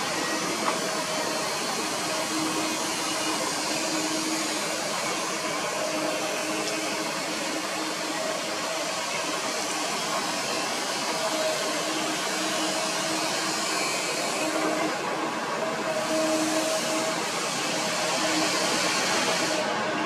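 Kobelco SK200 hydraulic excavator's diesel engine and hydraulics running steadily under load while it digs, a continuous whirring drone with a faint hum that wavers in and out.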